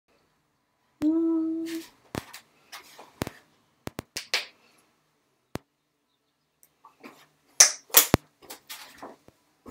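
Plastic lotion bottle being handled: several sharp clicks of its snap cap, then loud hissing squirts as lotion is squeezed out into a hand near the end. A short steady hum, like a hummed 'mm', sounds about a second in.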